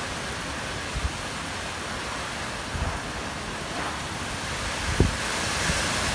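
Typhoon wind blowing in a steady rush, with a few gusts buffeting the microphone in low thumps.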